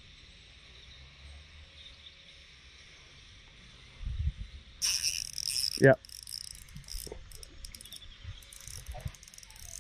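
Spinning reel's drag buzzing about five seconds in as a hooked pike pulls line, then a sharp knock and a run of scattered clicks from the reel and rod handling.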